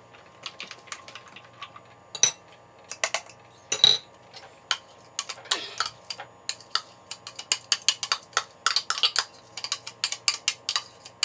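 A utensil clinking, tapping and scraping against a blender jar while blended fruit mix is scraped out, in an uneven run of sharp knocks that grows busier in the second half.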